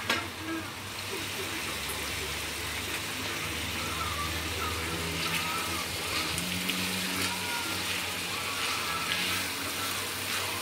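Whole pomfret and sliced bitter melon sizzling in a wok of oil and black bean garlic sauce: a steady hiss like light rain.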